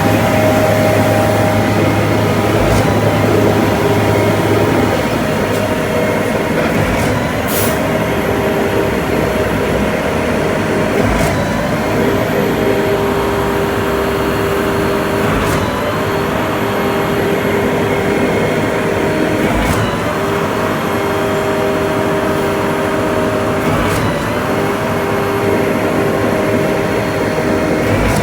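Concrete pump truck running steadily under load, its diesel engine and hydraulics holding a constant drone. A sharp knock comes about every four seconds as the pump changes stroke.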